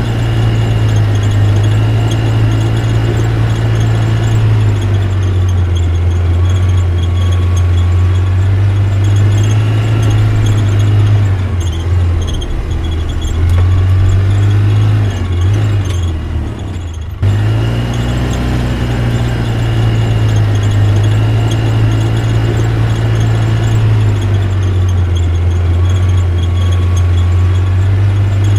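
A steady, loud low-pitched hum from a small motor, wavering a little in pitch, with fainter high squealing tones over it; it dips and cuts out briefly about seventeen seconds in, then resumes.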